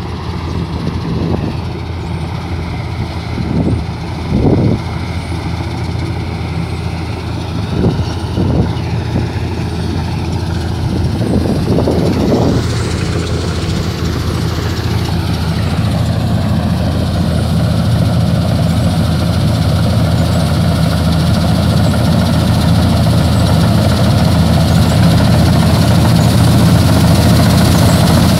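Combine harvester's engine running steadily as it cuts standing wheat, growing louder as the machine comes closer, with a few brief louder bumps.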